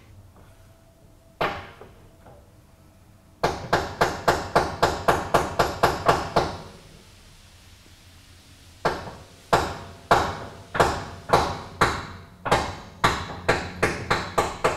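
Steel hammer striking a steel bolt, driving it through the track bar end and its mounting bracket. There is a single metal-on-metal blow, then a quick run of about a dozen blows, roughly four a second. After a pause comes another dozen slower blows, about two a second.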